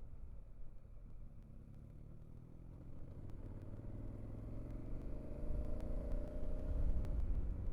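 A motor vehicle's engine over a low road rumble, its pitch rising steadily from about three seconds in as it speeds up, and getting louder toward the end.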